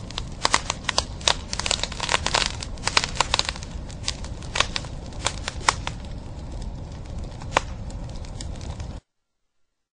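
Cigarette packs being handled and rubbed together, their cardboard and cellophane crinkling in irregular sharp crackles over a steady low rumble. The sound cuts off suddenly near the end.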